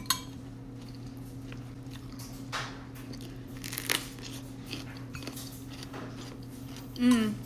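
A person chewing and biting crunchy food close to the microphone, with a few sharp crunches. A brief voiced murmur near the end, over a steady low hum.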